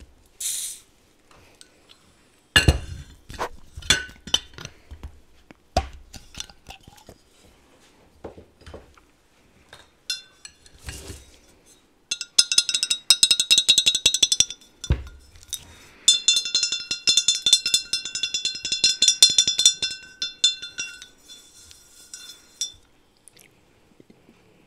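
A beer being opened and handled in glass: a short hiss, then a few sharp glass clinks and knocks. About halfway through come two long spells of dense, rapid crackling fizz with a steady ringing glass tone.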